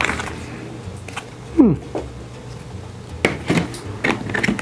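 A small plastic kit box being handled and opened on a tabletop: light clicks and clatter of the lid and the parts inside, with one short sliding squeak that falls in pitch about one and a half seconds in.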